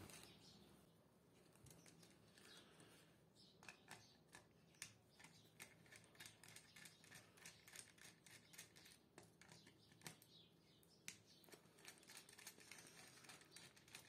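Near silence with faint, scattered clicks and ticks: a screwdriver turning the terminal screws of an RCCB and the plastic breaker box being handled.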